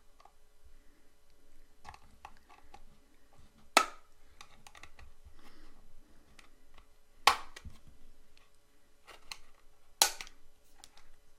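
Plastic snap-together case of a portable hard drive being prised open with a thin screwdriver along its seam: small clicks and scraping throughout, with three sharp snaps a few seconds apart as the case's clips let go.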